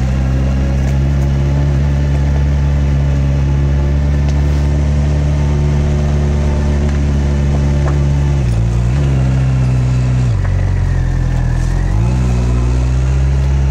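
Honda CB650R's inline-four engine running steadily in first gear on a slow uphill climb. The revs dip briefly about eight seconds in, fall again a couple of seconds later, and pick back up near the end.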